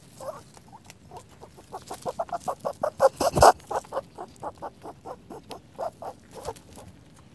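Rabbit calling in a quick run of short squeaks, about five a second, loudest a little past the middle.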